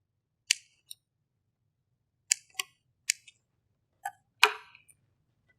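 About seven sharp clicks and taps, single and in quick pairs, the loudest near the end: craft tools and materials being handled on a tabletop.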